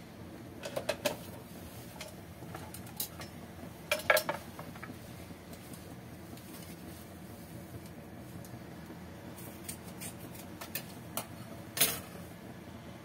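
Lidded cooking pot of cassava leaves heating on the stove: a steady low hum under scattered sharp clicks and clinks. They come in small clusters about a second in, around four seconds and near the end, and the cluster around four seconds is the loudest.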